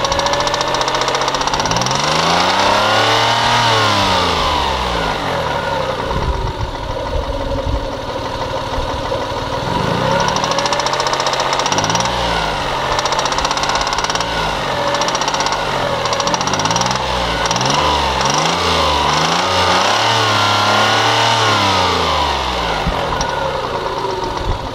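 Toyota 1MZ-FE V6 engine revved up and back down several times: one long rev a few seconds in, another about ten seconds in, then a quick run of short blips, with an engine knock that the owner is showing.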